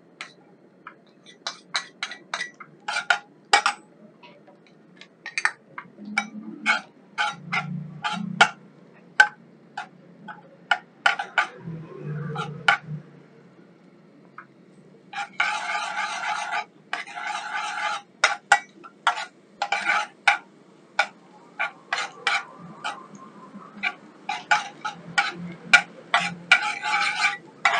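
Metal spatula scraping and clicking against a frying pan as minced garlic is stirred in hot oil: many short scrapes, with two longer stretches of steady scraping about halfway through and near the end.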